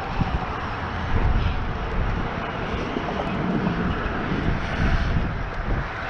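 Wind buffeting the microphone over a steady distant engine drone with a faint held tone.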